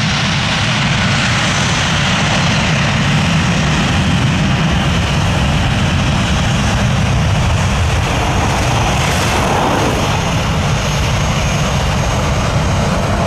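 Boeing 757 airliner's twin jet engines at take-off power during its take-off roll on a wet runway: a loud, steady rush of jet noise over a deep rumble.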